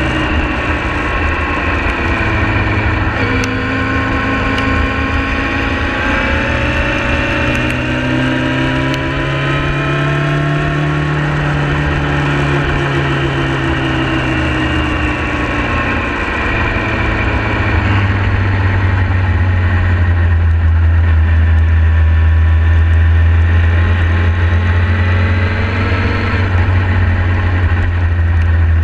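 Yamaha YZF-R6 inline-four engine running at moderate revs, its pitch rising and falling gently, with wind rumbling on the camera. About two-thirds of the way in the revs drop and it settles into a low, steady note.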